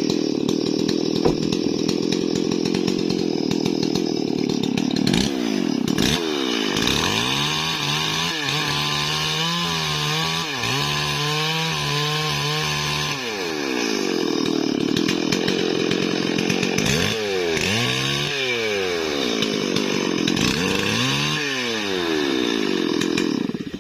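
Stihl MS 440 two-stroke chainsaw cutting Bayur wood at full throttle. Its engine speed dips to idle and revs back up several times before it cuts off suddenly near the end.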